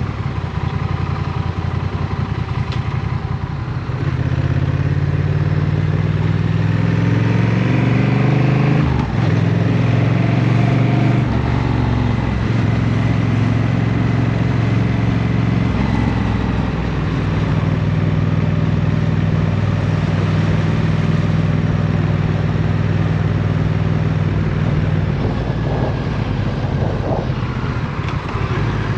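Honda CMX1100 Rebel's 1,084 cc parallel-twin engine under way: low revs at first, pitch climbing from about four seconds in, a brief break near nine seconds like a gear change, then a steady cruising note.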